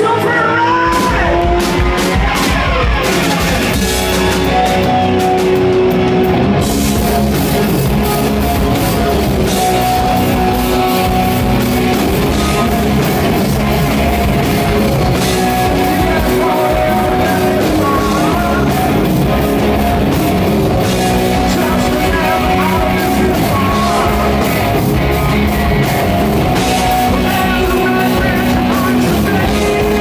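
A live rock band playing loud: electric guitars through stacked amplifiers, bass and a drum kit with cymbals, the full band coming in at the start, with a lead singer singing over it.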